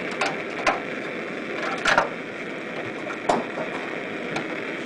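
Zinc sheet pieces being handled and pressed together by hand: a few light metallic clicks and knocks, the loudest about two seconds in, over steady background noise.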